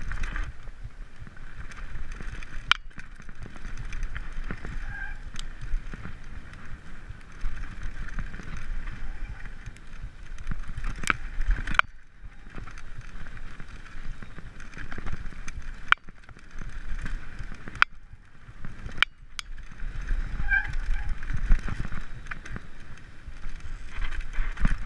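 Mountain bike riding over a bumpy dirt singletrack: a constant rumble of the tyres and rattle of the bike, with sharp clicks and knocks now and then as it goes over bumps.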